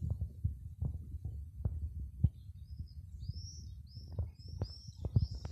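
Irregular low thumps and knocks from a handheld phone camera being carried and moved. From about halfway through, a small bird chirps in quick, repeated short notes.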